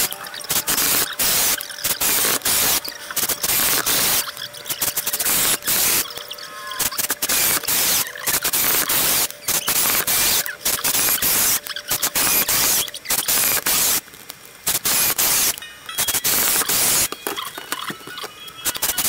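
Makita 6093D 9.6 V cordless drill driving a 2-inch screw into a wooden block and backing it out, over and over, in bursts of a second or two with short pauses between.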